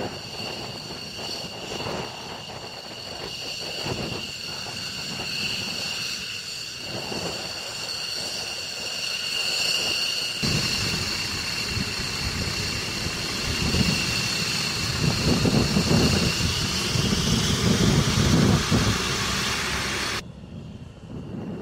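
F-15E Strike Eagle jets taxiing on their twin Pratt & Whitney F100 turbofans: a steady high-pitched turbine whine over a rumbling jet noise. The rumble grows louder in the second half, then drops off suddenly near the end.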